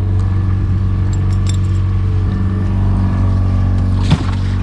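Boat's outboard motor running steadily at trolling speed, a low, even hum. A few light clinks come about a second in, and a sharp knock near the end.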